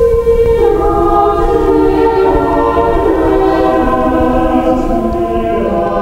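Theme music: a choir singing long held chords, with more voices joining about a second in and the harmony shifting slowly, over a steady low rumble.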